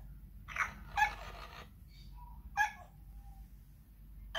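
Electronic voice of an animatronic talking monkey doll making several short, squeaky monkey-like calls through its small speaker, set off by a finger put to its mouth. The loudest call comes about a second in.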